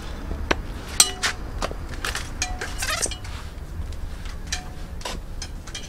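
Chrome-plated 7-inch stiletto heels of platform sandals clacking on concrete as the wearer walks, a sharp click with a short ringing tone at each step, with a pause in the steps a little after three seconds in.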